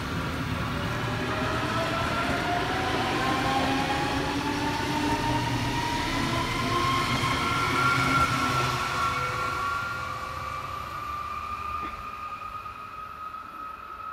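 S-Bahn electric multiple unit accelerating away, its traction motors giving a whine that rises steadily in pitch over the rumble of the wheels on the rails. The sound fades in the last few seconds as the train draws away.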